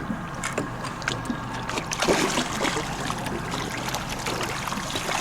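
Motorboat running on open water, with a steady engine hum and water rushing along the hull that grows louder about two seconds in. A few sharp knocks are heard.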